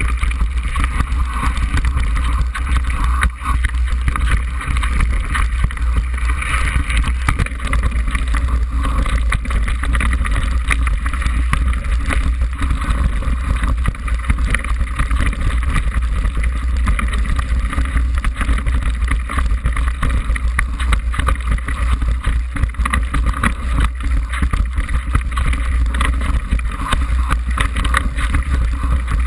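Mountain bike rattling and knocking over a rocky trail on a fast descent, with wind buffeting the handlebar-mounted camera's microphone as a deep, constant rumble.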